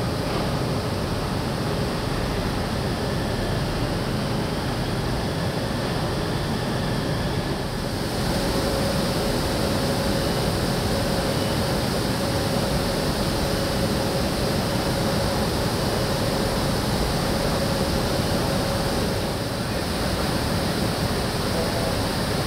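Steady broad roar of industrial-site background noise with a faint steady hum. It shifts slightly in level about 8 s in and again near the end.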